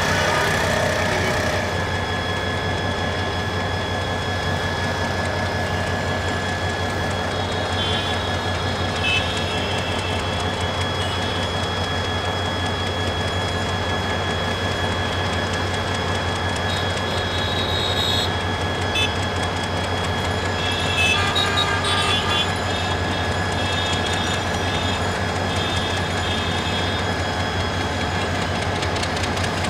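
Diesel-electric locomotive hauling a passenger train slowly out of the station around a curve: a steady, unbroken engine drone with a thin high whine running through it. Short high chirps come and go in the middle.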